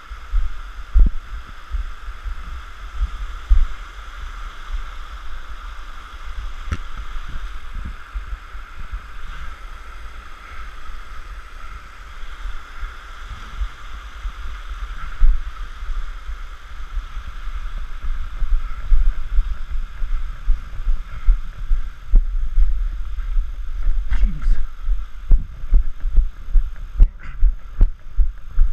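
Running footsteps as low, heavy thuds, first uneven over stream stones, then quick and regular, about two to three a second, on a wooden boardwalk from about two-thirds of the way in. Under them a steady rush of a small stream and waterfall that fades away after about twenty seconds.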